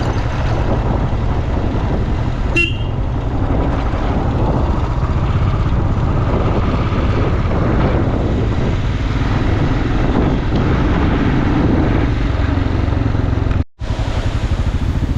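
Motorcycle on the move: steady engine and wind noise, heavy in the low end, with a short horn toot about two and a half seconds in. The sound drops out for a split second near the end.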